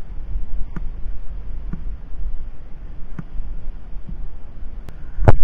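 Low, steady rumble of wind buffeting a headcam microphone during a horseback ride at a walk, with a few faint clicks about a second apart and one sharp knock near the end.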